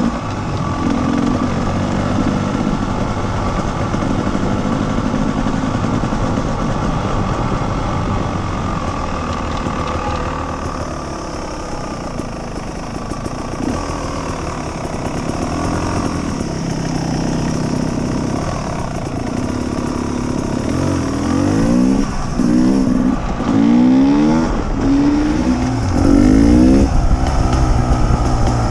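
Enduro motorcycle engine heard from on the bike, running steadily at road speed, then accelerating near the end with its pitch climbing in several short rising sweeps.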